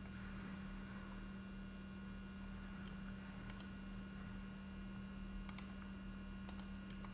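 Steady low electrical hum with a few faint computer mouse clicks, mostly in the second half.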